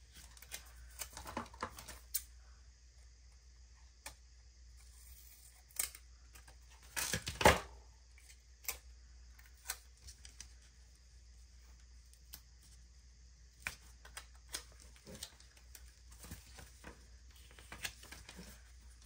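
Quiet handling of paper sticker sheets and a journal: scattered small clicks and rustles, with one louder, brief rustle about seven seconds in.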